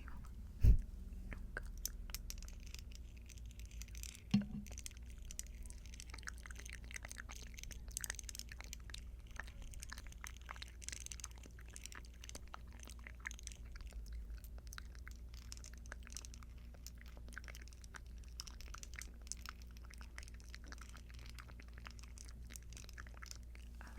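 Earrings handled close to the microphone: a dense run of small, crisp clicks and ticks, with two louder bumps about a second in and about four seconds in.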